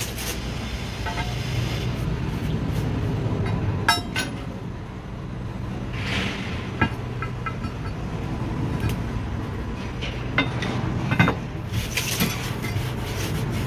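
Light clinks and knocks of ceramic tiles being handled, with a few sharper knocks, over a steady low rumble.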